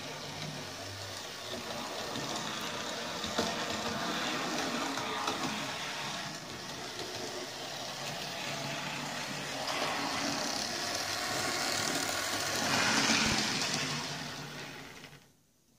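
Hornby OO gauge BR Class 20 model diesel locomotive running on its track: a steady whirr from the electric motor with wheel rattle on the rails. It gets louder as the model comes close, loudest a little before the end, then dies away just before the end.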